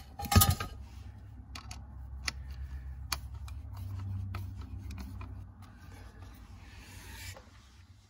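Screwdriver fastening a plastic SKIM immobilizer module onto a car's ignition switch housing: a sharp click about half a second in, then scattered small clicks and ticks over a low rubbing sound, with a faint scratching near the end.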